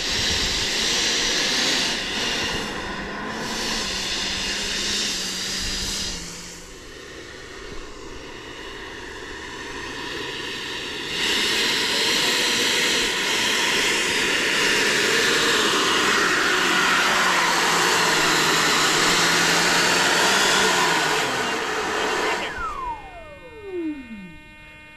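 Electric ducted fan of a Bommerang RC Mini Viper jet running on the ground with a steady rushing whine. It eases off for a few seconds, then comes back up louder. About 22 seconds in, the throttle is cut and the fan spins down with a falling whine.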